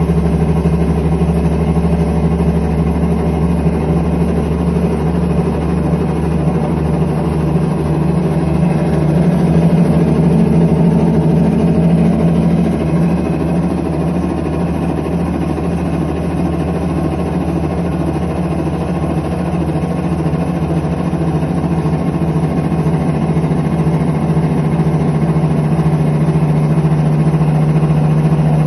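IPSO commercial washer running with bad bearings: a loud, steady mechanical drone with a strong low hum, swelling slightly about a third of the way in.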